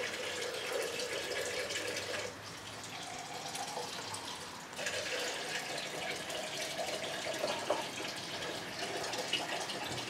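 Steady rushing hiss that drops a little about two seconds in and comes back near the five-second mark, with a few faint clicks of laptop keys being pressed.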